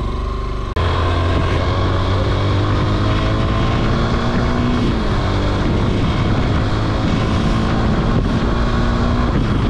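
Honda XR190's single-cylinder four-stroke engine running steadily as the motorcycle is ridden. The engine gets suddenly louder just under a second in.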